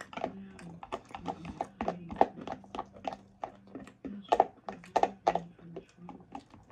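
Close-miked chewing of a salad with chicken: a quick run of clicking mouth sounds several a second, loudest about two seconds in and again around four to five seconds in.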